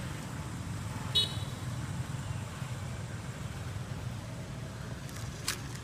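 Steady low rumble of a motorbike engine running. About a second in there is one short high-pitched squeak, and a faint click near the end.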